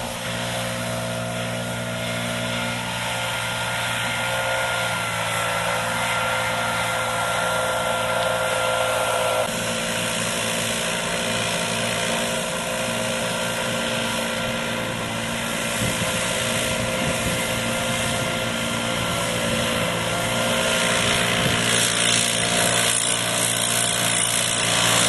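Stihl BR 600 backpack blower running steadily at working speed while blowing hay down a slope. Its engine note shifts about ten seconds in, and more air rush comes through near the end.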